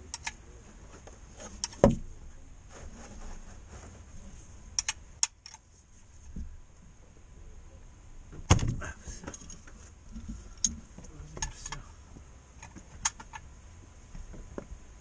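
Metal hand tools clinking and knocking as a ring spanner is worked on a bolt under the car. Scattered small clicks and a few sharp knocks, the loudest about two seconds in and again about eight and a half seconds in.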